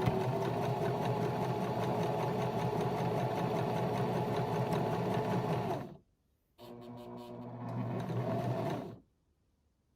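Electric sewing machine stitching a seam in fabric. It runs steadily for about six seconds, stops briefly, then runs again more quietly for a couple of seconds and stops near the end.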